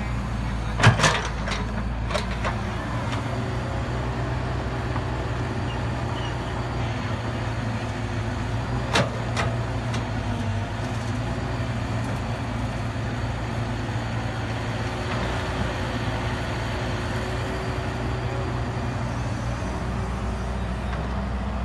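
Caterpillar 312B hydraulic excavator's diesel engine running steadily while digging, with a few sharp knocks about a second and two seconds in and twice around the middle.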